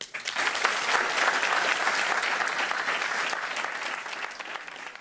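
Audience applauding; the clapping starts all at once and slowly dies away.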